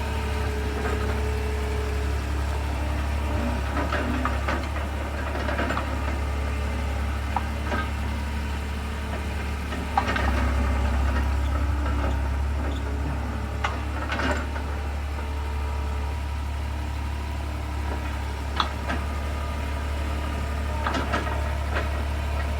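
Skid steer engine running steadily, louder from about ten seconds in, with scattered knocks and clanks.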